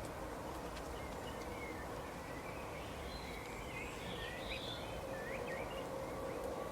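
Small birds chirping and twittering in short quick calls over a steady low background rumble, the calls busiest in the middle of the stretch.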